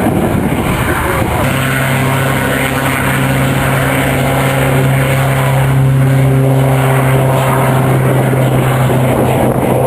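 Aircraft engine noise: a broad rushing sound, joined about a second and a half in by a steady, even-pitched drone that holds without rising or falling.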